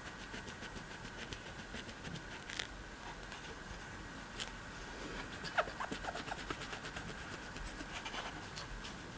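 Cloth wiping and rubbing over a laptop motherboard, with many small clicks and a few sharper ticks from handling the board, over a faint steady high-pitched whine.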